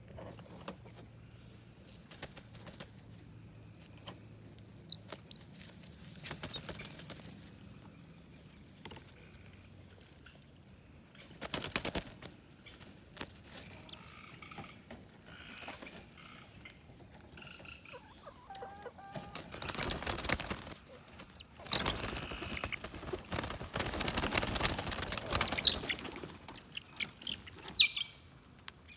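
Backyard chickens clucking, with sporadic short noisy bursts and a longer stretch of loud rustling a little past the middle. Near the end come a few short, high chirps, which fit a chick.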